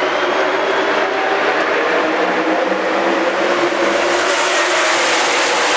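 A field of NASCAR Cup Series stock cars with V8 engines running at full throttle, a dense, steady engine noise from the whole pack with no single car standing out.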